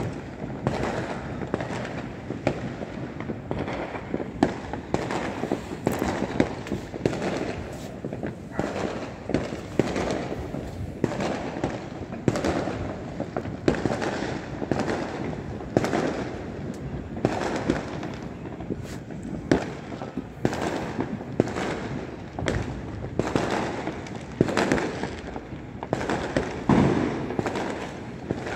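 Many distant fireworks going off at once: a constant barrage of bangs and crackling pops, several a second, with no pause.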